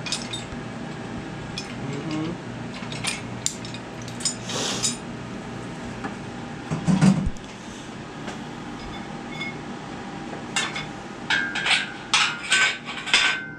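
Scattered metallic clinks, knocks and rattles of an engine hoist's chain, load leveler and tools being handled, with a heavier knock about halfway and a quick run of ringing metal clinks near the end.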